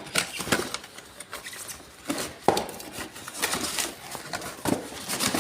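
Irregular hard plastic clicks and knocks, about ten over a few seconds, from toner cartridges being handled and fitted into a colour laser printer.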